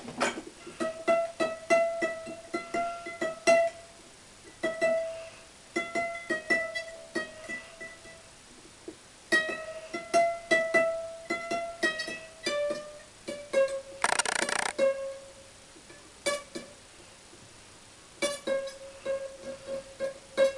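Background music: a plucked guitar or ukulele tune of single picked notes, with a short rasp of noise about two-thirds of the way through.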